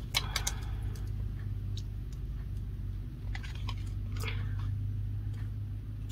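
Light clicks and handling noise from a tape measure and a beaded bracelet being laid out and lined up, over a steady low hum; a few clicks come close together at the start and a sharper one at the very end.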